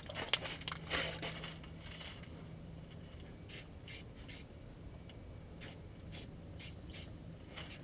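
An aerosol spray can giving a few short, faint hissing bursts, sprayed onto fresh frame welds, with some scraping handling noise in the first second or so.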